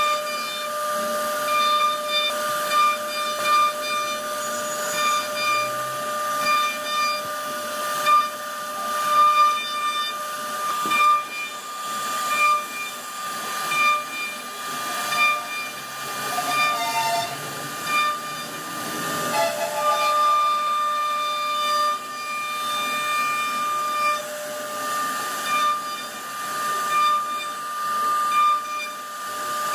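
CNC router spindle whining steadily at a high pitch as its bit cuts relief carving into a wooden panel, with a hiss of chips being thrown. The noise swells and dips every second or two as the cut changes.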